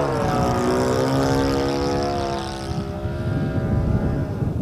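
RC 3D aerobatic model plane's motor and propeller buzzing, dropping in pitch at the start, then holding a steady note with a thin high whine before fading away about three seconds in. Wind buffets the microphone near the end.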